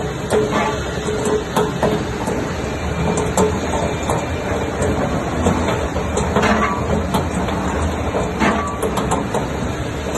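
Laska double-shaft Z-arm mixer running, its two Z-shaped kneading arms turning in the stainless-steel trough. A steady mechanical hum with scattered sharp clicks and knocks.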